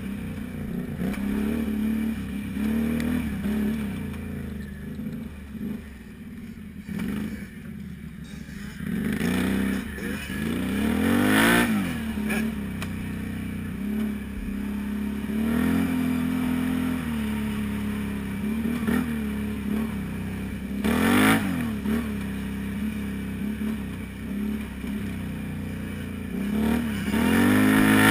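Can-Am Renegade 500 ATV's single-cylinder engine running on a rough trail, its revs rising and falling with the throttle. It eases off early on, then surges sharply about a third of the way in, again about two thirds in, and near the end.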